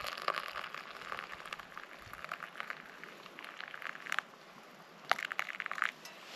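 Hot water poured from a small metal camping pot into a collapsible cup of coffee, splashing and fizzing as the coffee froths up. The pour stops about four seconds in, and a second short splash comes about a second later.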